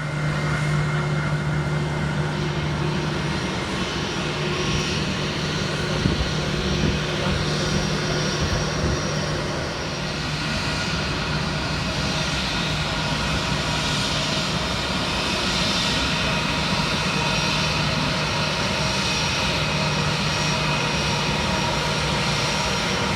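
Airbus A320-200 jet engines at taxi power, a steady whine over a rumble that holds level throughout, easing slightly about ten seconds in.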